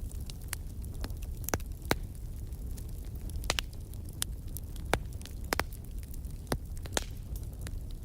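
Wood fire crackling: sharp, irregular pops and snaps over a steady low rumble of the flames.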